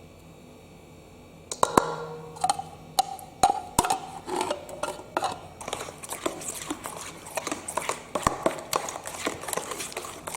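Kitchen utensils knocking and scraping against cookware in quick, irregular strikes, some with a short ring, starting about a second and a half in and stopping near the end.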